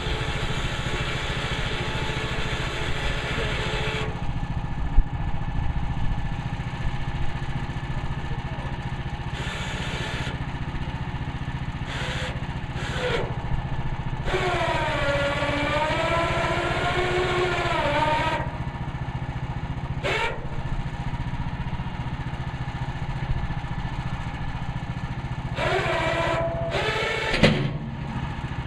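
Woodland Mills HM130 Max bandsaw mill's gas engine running steadily, with the band blade cutting through red fir in stretches. A high, wavering whine rises over it for a few seconds in the middle and again near the end, with an occasional knock.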